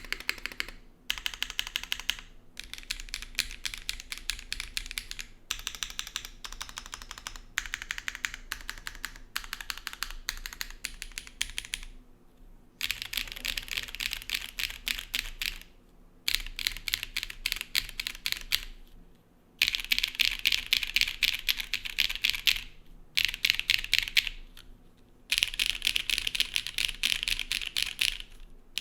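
Zoom75 mechanical keyboard being typed on fast, with Owlab Neon switches and GMK Sparta keycaps on a gasket-mounted carbon fiber plate with no foam. It gives a quick stream of keystroke clacks, broken by short pauses every few seconds.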